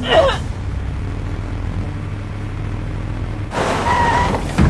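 Car engine running with a steady low rumble; near the end a short rush of noise with a held tone comes in.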